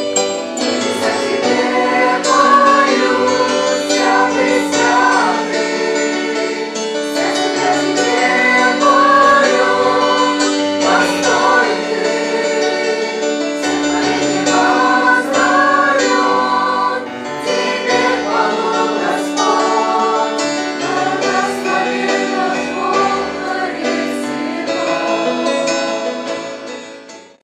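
Choir singing a song with instrumental accompaniment and held sustained notes, fading out near the end.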